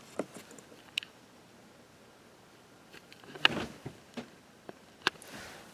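A few scattered small clicks and knocks, the loudest a short cluster about three and a half seconds in.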